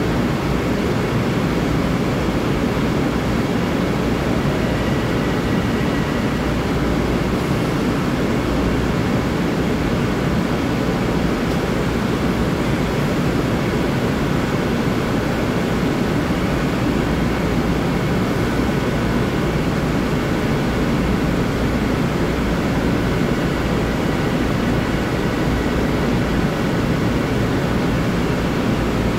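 Steady running noise of a standing LIRR M3 electric multiple-unit train, a constant hum and rush with faint high whines coming and going over it.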